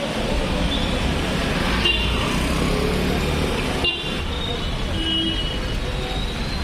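Road traffic noise with vehicle horns honking in short blasts, about two, four and five seconds in.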